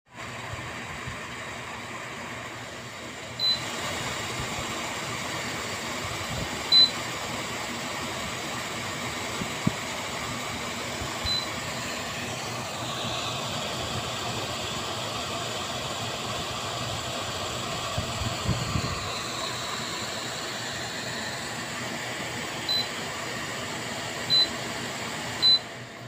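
Kanazawa portable evaporative air cooler running, its fan giving a steady hiss of moving air. Six short, high beeps from the unit sound as its settings are changed, three in the first half and three close together near the end.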